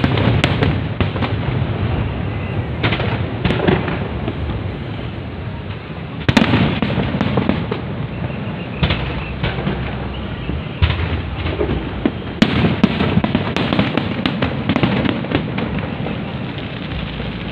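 Fireworks display: aerial shells bursting one after another with dense crackling between the bangs. The loudest bursts come about six seconds in and again about twelve seconds in.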